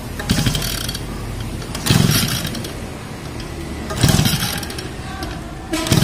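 Recoil pull-starter of a Tanika two-stroke grass cutter yanked four times, about two seconds apart, each pull a short mechanical whir. The engine is choked but does not catch on any pull: it is failing to start.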